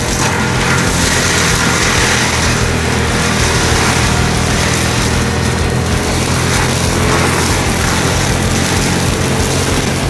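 Compact track loader's diesel engine held at steady high revs, driving a Denis Cimaf forestry mulcher head as it chews into brush and small trees. The result is a loud, unbroken machine drone under a constant hiss of shredding material.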